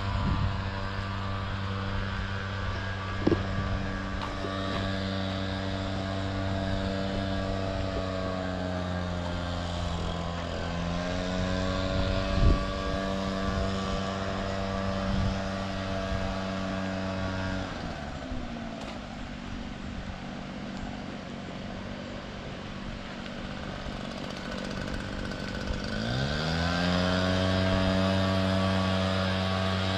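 A vehicle engine runs steadily with an even hum, dips briefly about a third of the way in, and falls away just past the middle. Near the end it rises again in pitch and holds. A couple of short knocks sound in the first half.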